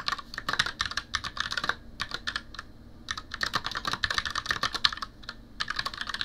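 Typing on a computer keyboard: rapid runs of key clicks broken by brief pauses.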